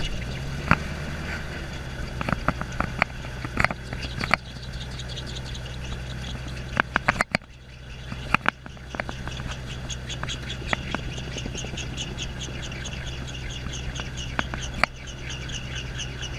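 Gyrocopter engine running at a steady low idle as it taxis, with scattered clicks and rattles, and from about halfway on, a fast run of high-pitched squeaks repeating over the engine hum.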